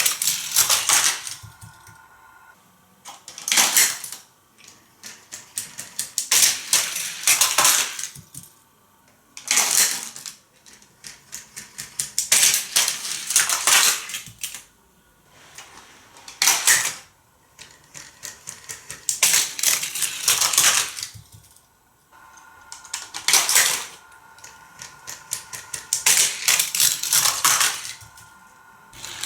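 Die-cast Hot Wheels cars clattering over a plastic stunt-track playset, in repeated runs of rapid clicks that each last a second or two with short pauses between.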